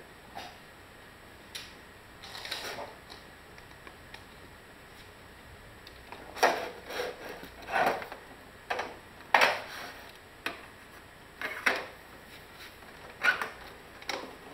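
Parts of a roll-up banner stand knocking and clacking together as it is assembled: irregular sharp knocks, sparse at first, then about a dozen in the second half.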